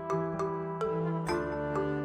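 Background music: light melodic instrumental with plucked or struck notes every quarter to half second over a steady low drone.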